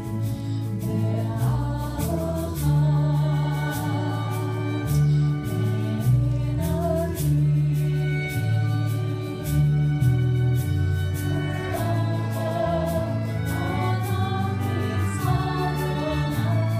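Live ensemble music: voices singing a melody with acoustic guitar and other plucked strings, over a low bass line that steps from note to note.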